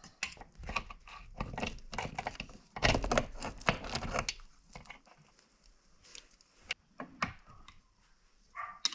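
Irregular knocks and clicks from hands-on work, dense through the first half and sparser after.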